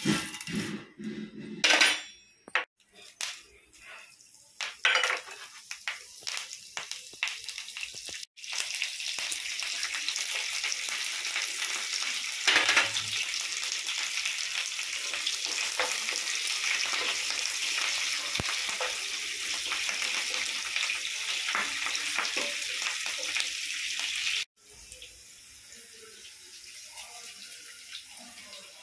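Tempering in hot oil in a nonstick pan: dals and mustard seeds poured in crackle with scattered clicks, then green chillies and curry leaves sizzle with a steady loud hiss for about sixteen seconds, which drops suddenly to a quieter sizzle near the end.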